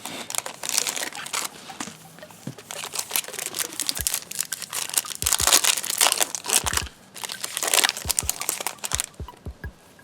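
Topps Chrome foil card pack wrapper being torn open and crinkled, with a few soft thumps from handling; it quiets down near the end.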